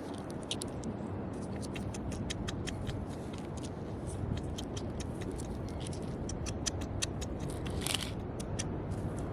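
Small beach stones and pebbles clicking together in irregular, sharp clicks as they are handled and sifted, over a steady low rumble.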